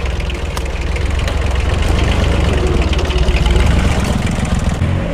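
Truck engine running at idle, a steady rapid low pulsing that swells a little louder toward the middle and eases near the end.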